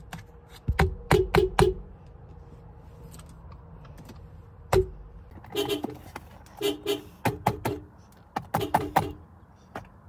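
Subaru car horn sounding in quick short honks, several bursts of rapid taps on the horn, each press with a thud of the hand striking the steering-wheel horn pad.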